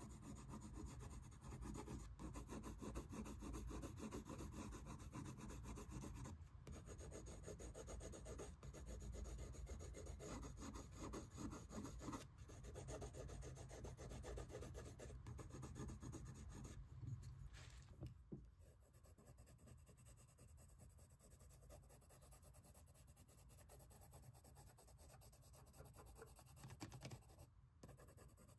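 Colored pencil rubbing back and forth on sketchbook paper, a soft scratchy shading sound. It dies away about two-thirds of the way through, leaving near quiet.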